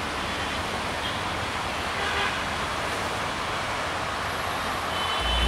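Passenger train running away on metre-gauge track: a steady rumble of wheels and coaches on the rails. A loud low boom of music cuts in at the very end.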